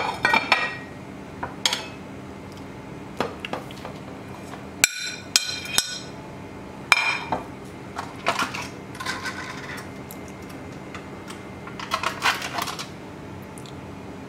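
A plate and spoons clinking against a mixing bowl as ground spices are tipped in. There are scattered sharp clinks, some in quick clusters of two or three, each ringing briefly.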